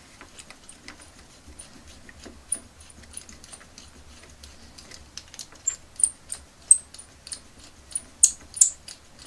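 Pin vise drill bit, turned by hand, boring into the plastic ankle of a small action figure: a run of small scratchy clicks and ticks as the bit cuts. The ticks grow louder and come more often over the second half.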